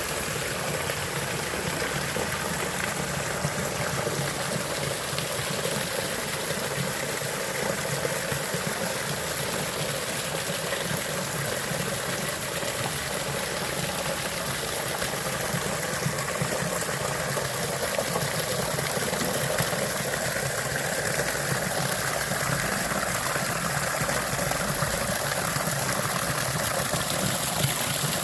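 Natural hot springs waterfall: water falling and splashing steadily.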